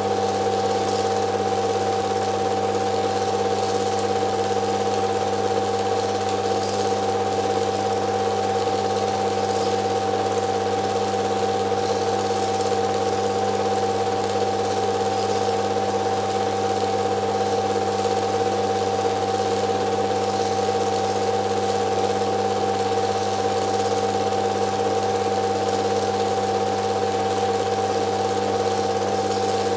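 Film projector running: a steady motor hum and mechanism whir that stays the same throughout.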